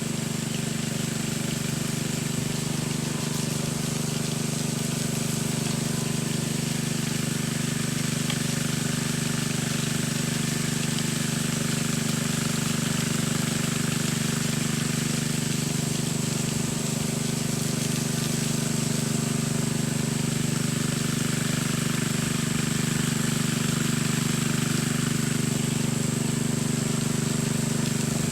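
Small petrol engine of a concrete power trowel ("helicopter") running at a steady speed, an unchanging mechanical hum.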